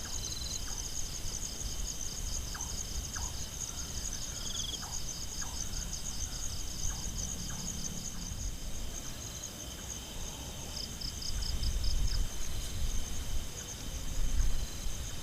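Nighttime forest insects, crickets and similar, chirring in rapid, even pulses with a steady high drone under them. A low rumble underneath grows louder toward the end.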